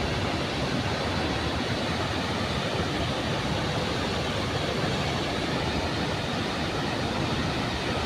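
Steady roar of a large waterfall: an even, unbroken rush of falling water.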